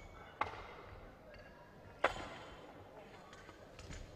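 Two sharp knocks in a large hall, about a second and a half apart, each ringing on briefly, over a faint murmur of hall noise.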